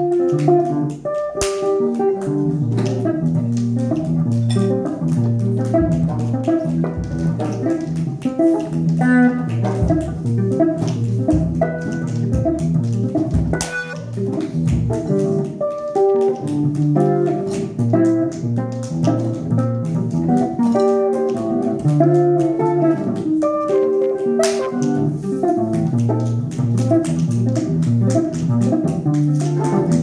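Live post-jazz band playing improvised music: guitar and keyboard over a low, shifting bass line, with scattered sharp percussive hits.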